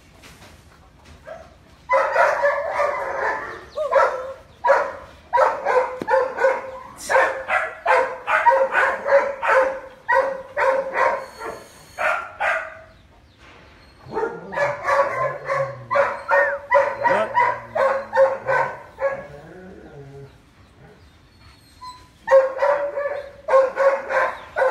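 A dog barking in long runs of rapid barks, several a second, broken by short pauses.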